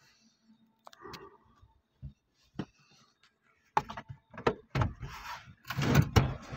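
Scattered clicks and scuffing handling noise inside a car cabin, with louder irregular rustling bursts in the second half.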